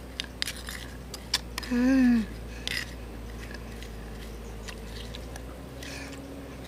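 A metal spoon stirring and tapping in a stone mortar: a scatter of light clicks and scrapes, with a brief vocal sound about two seconds in.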